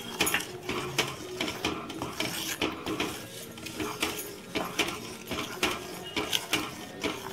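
Wooden spoon stirring thick curry in an earthenware pot, scraping and knocking against the clay in irregular clicks.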